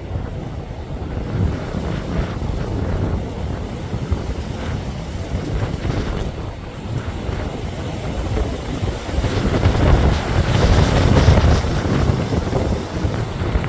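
Wind buffeting the microphone: a low, rumbling gusty noise that swells to its strongest about ten seconds in.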